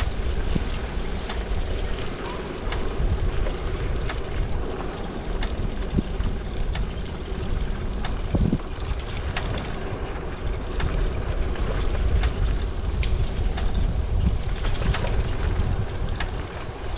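Wind buffeting the microphone of a head-mounted camera on a moving bicycle, with a steady hum beneath and scattered clicks and knocks throughout.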